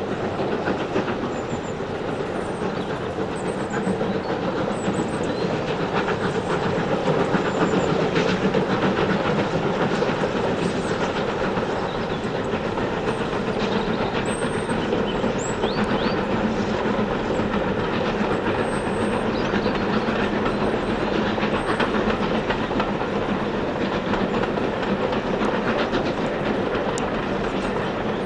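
Three USATC S160 2-8-0 steam locomotives working hard together at the head of a train, their exhaust beats merging into one continuous, heavy sound that swells loudest about a third of the way in.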